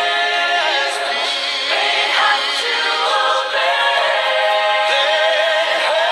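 A cappella vocal group singing a gospel song in close harmony, with no instruments and no bass underneath.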